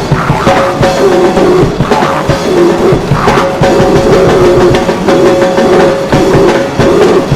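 Loud rock music: a drum kit played with dense, rapid strokes under steady held guitar tones, with no break.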